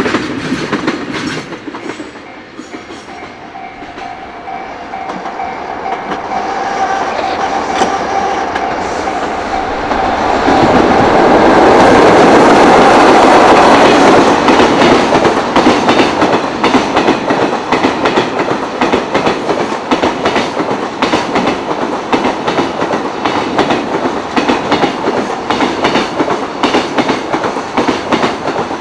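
A freight train hauled by a JR Freight EF66 electric locomotive approaches and passes, loudest about 11 to 14 seconds in. Then its container wagons clatter over the rail joints in a steady, rapid rhythm.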